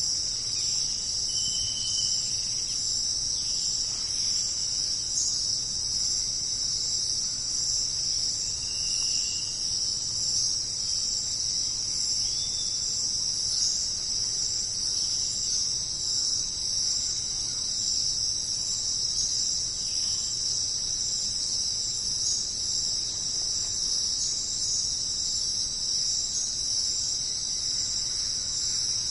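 Dense, steady high-pitched chorus of insects, with a few brief chirps standing out over it in the first half.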